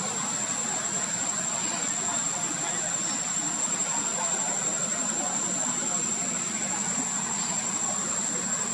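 Steady outdoor background noise: a dense, even hiss under a constant high-pitched whine, with no distinct event.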